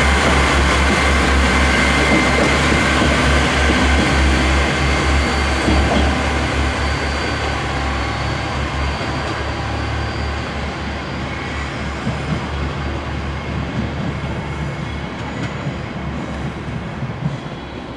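KiHa 40-series diesel railcar pulling away, its diesel engine throbbing with a steady low hum and the rumble of the wheels on the rails. The sound fades gradually as the train recedes, with a few faint clicks from the wheels near the end.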